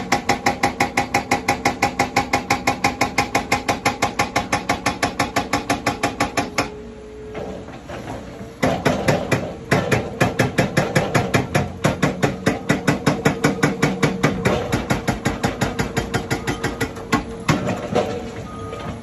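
Rammer 4099E hydraulic breaker on a CAT 336F excavator hammering concrete foundations in rapid, evenly spaced blows, several a second, over a steady engine hum. The hammering stops for about two seconds a third of the way in, resumes, and stops again near the end.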